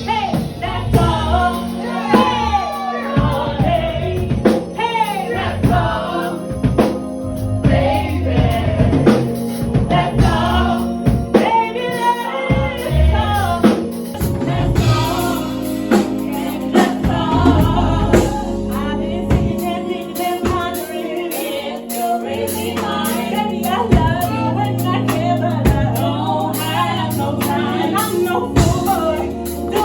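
Live band music with women singing, the voices bending through long held notes and runs over the accompaniment.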